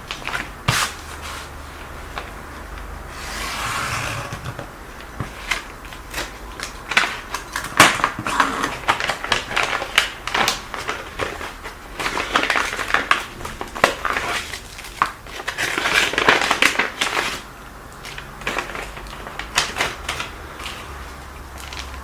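An envelope being opened and its contents unpacked by hand: packaging crinkling and rustling in several longer stretches, with many short clicks and taps in between.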